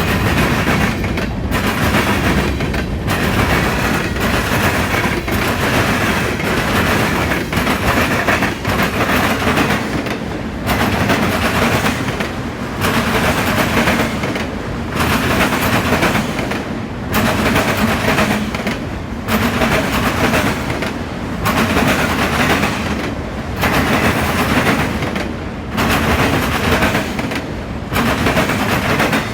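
Intermodal freight train rolling past at speed, its wheels banging over a railroad diamond crossing: a steady loud din of wheel noise with rapid impacts, dipping briefly about every two seconds as car after car goes by. No horn is sounding.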